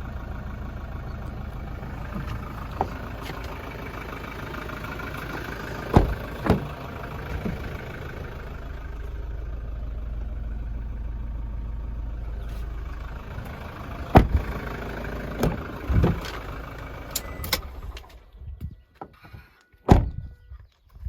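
Toyota Hilux 3.0 four-cylinder turbo diesel idling, heard from inside the cab, with several sharp clicks and knocks of handling in the cabin. The steady running sound cuts out about three quarters of the way through, followed by a few clicks and one loud knock.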